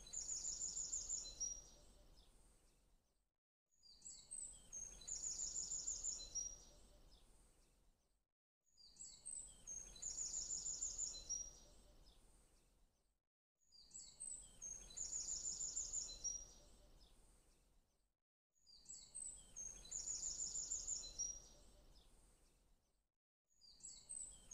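A short recording of birdsong played in a loop: a burst of high, rapid chirps ending in a trill, repeating identically about every five seconds with a brief silence between repeats.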